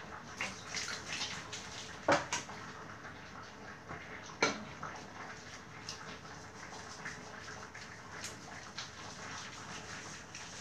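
Wet squelching and rubbing as hands work shampoo lather into a cat's soaked fur, with two sharper wet slaps about two seconds and four and a half seconds in.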